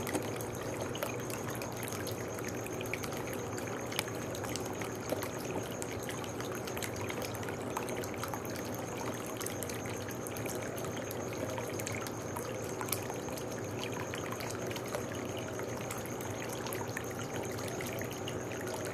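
Garden fountain water trickling and splashing steadily, with many small drips and splashes.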